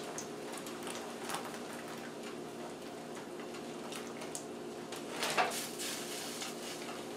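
Cut green beans poured from a stainless-steel colander into a pot of boiling water: scattered soft splashes and metal clinks over a steady hum, with the loudest clatter about five seconds in.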